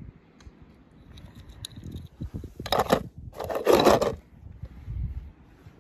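Two scraping, rubbing sounds near the middle, each about half a second long, among soft knocks of handling.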